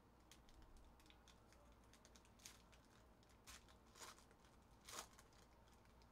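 Faint crinkling and tearing of a foil trading-card pack wrapper opened by hand: light crackles with a few short rips, the loudest about five seconds in.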